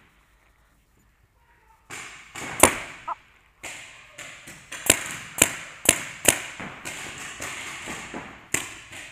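Paintball markers firing during a game in a large indoor hall: about seven sharp pops, the loudest a little under three seconds in and several others about half a second apart, over the rustle of the player moving. The first two seconds are near silent.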